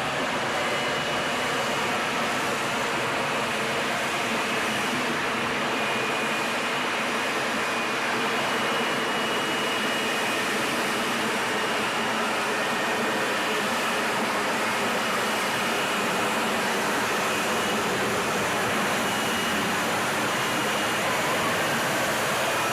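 Jet aircraft engine running: a steady rushing roar with a faint high whine that comes and goes.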